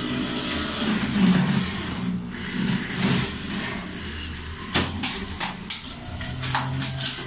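Electric juicer motor running under load as chopped fruit and vegetables are fed through it, with a steady hum. From about two-thirds of the way in come a series of sharp knocks and clatters.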